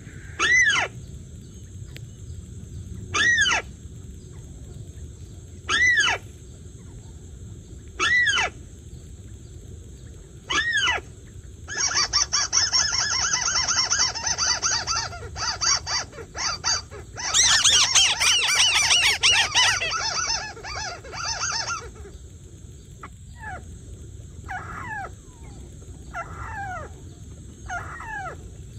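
Recorded bird call played through a camouflaged electronic lure speaker set beside a net trap to draw birds in: a loud call repeated about every two and a half seconds, then a longer run of fast, busy calling, then fainter repeated calls near the end.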